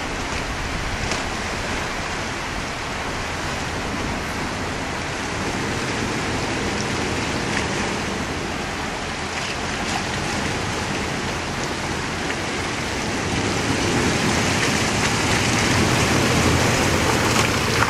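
Creek water rushing steadily over rock ledges, with a Toyota four-wheel drive's engine and the wash of its wheels through the water growing louder near the end as it wades closer.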